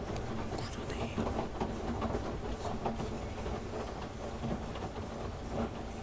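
Washing machine running mid-cycle: a steady motor hum and rumble of the turning drum, with irregular knocks and clatter.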